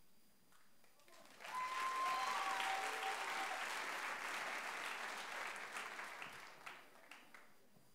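Audience applauding and cheering, starting suddenly about a second and a half in and dying away near the end.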